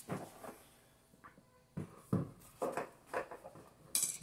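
Infant car seat parts being handled: a handful of short light clicks and knocks at irregular spacing.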